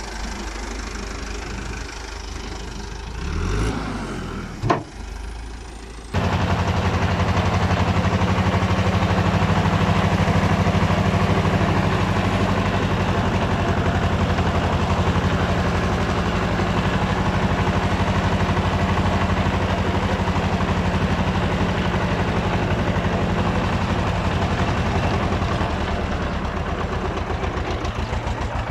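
An engine idles more quietly for the first six seconds, with one sharp knock. About six seconds in it cuts to a farm tractor's engine heard from the driver's seat, running loud and steady under load as it pulls a trailer of kerb stones.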